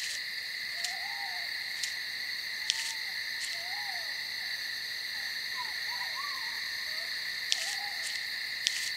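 Night ambience: a steady, unbroken insect chorus, with several short rising-and-falling calls and a few faint sharp ticks over it.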